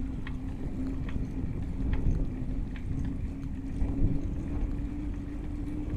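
Wind and ride rumble on a bicycle handlebar-mounted action camera while cycling, with a steady low hum and light ticks about once a second.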